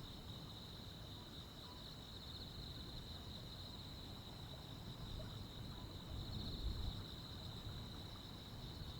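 A chorus of crickets and other insects making a steady high trill with a fine pulsing texture. Underneath runs a low rumble that swells briefly about two-thirds of the way through.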